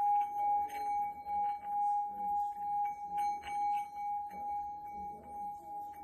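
Small 7.6 cm hammered Tibetan singing bowl being rubbed around its rim, singing one steady high tone with a fainter overtone above it. Its loudness swells and fades about twice a second, with a faint scraping of the striker on the rim.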